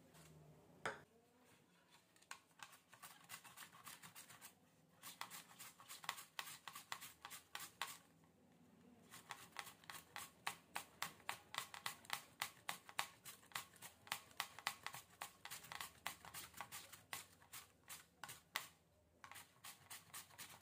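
Peeled raw potato rubbed on a flat stainless-steel hand grater, a rasping scrape on each quick stroke, in several runs with short pauses. A single knock about a second in.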